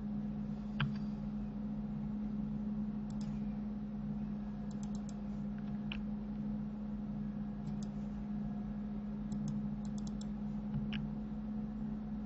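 Scattered clicks of a computer keyboard and mouse, some in quick runs of three or four, over a steady low electrical hum.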